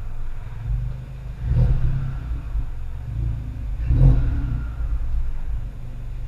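Exhaust of a VW Mk7 GTI's turbocharged four-cylinder, on an APR Stage 2 tune with an APR downpipe and Magnaflow cat-back, revved twice, about a second and a half in and again about four seconds in, with a sharp pop at each rev. It then settles back to a steady idle.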